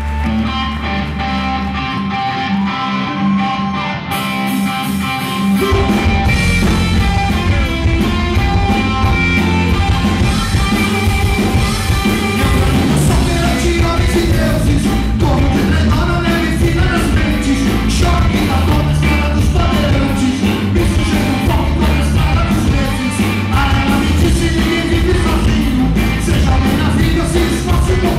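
Live rock band: held electric guitar notes ring out over the amplifier for the first few seconds, then drums and bass guitar come in hard about five seconds in and the band plays a fast rock song with a man singing over it.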